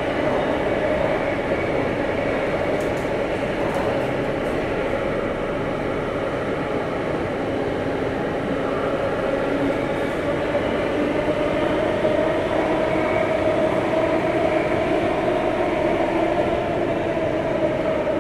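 Underground metro train running between stations, heard inside the passenger carriage: a steady rumble of wheels and running gear with a humming motor tone that drifts slowly up and down in pitch.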